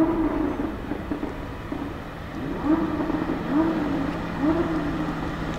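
Mercedes-AMG GT63 S's twin-turbo V8, tuned with aftermarket turbos and downpipes, running at low speed with short throttle blips, the revs rising and falling: one at the start, then three about a second apart later on, over a steady low drone.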